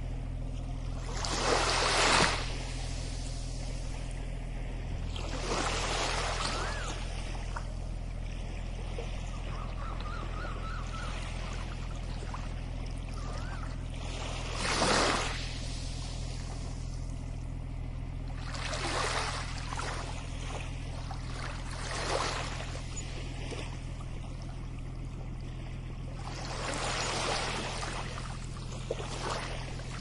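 Small waves wash up on a sandy shore about six times, each a swelling hiss lasting a second or two, with the strongest near the start and about halfway through. A steady low rumble runs beneath them.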